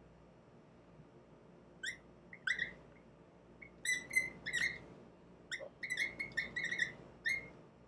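Dry-erase marker squeaking on a whiteboard while writing, a run of short high-pitched squeaks starting about two seconds in and coming thick and fast in the second half.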